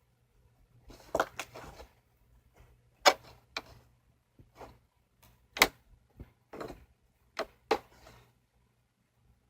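Slime being squeezed and worked by hand, giving sharp pops and crackling clicks in irregular clusters as air pockets in it burst.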